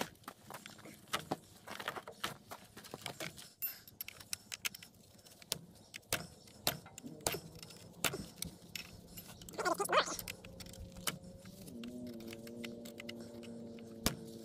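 Irregular metallic clicks and clinks of a chainsaw's chain, bar and drive sprocket being handled and picked free of packed sawdust. There is a brief squeal about ten seconds in, and a steady humming drone starts a couple of seconds later.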